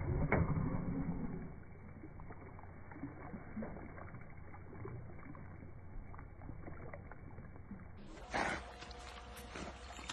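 Water sloshing and lapping around a German Shepherd as it paddles across a pool, louder for the first second or so with one sharp click. About eight seconds in the sound changes and a brief louder noise stands out.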